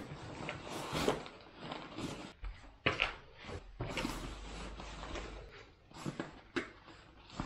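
Clothes being stuffed into a hiking backpack: fabric and pack material rustling and scraping in uneven bursts, with a few sharp knocks.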